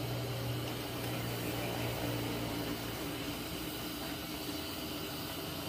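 Shrimp, octopus and meat sizzling in a hot wok as they stir-fry, a steady hiss.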